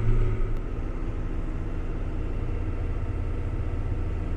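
Heavy farm machine's engine running at a steady speed: a low, even drone.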